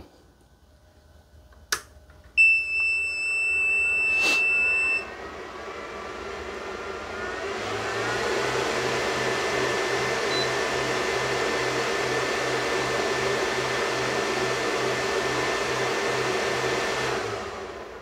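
Power inverter switched on: a click, then a steady high startup beep for about two and a half seconds. Its cooling fan then spins up with a rising whir, runs steadily with a faint pulsing hum, and winds down near the end.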